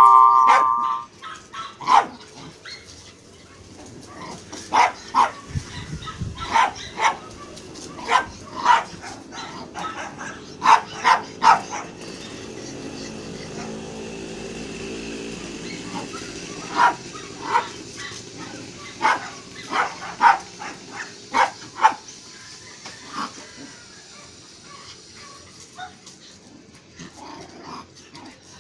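Jack Russell terriers barking in short, sharp barks during play. The barks come in scattered runs, busiest in the first twenty seconds and thinning out toward the end.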